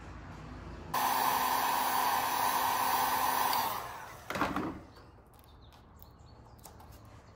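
Heat gun blowing steadily for about three seconds, switching on suddenly about a second in and dying away, used to soften vinyl wrap so it can be folded. A brief handling sound follows as it dies away.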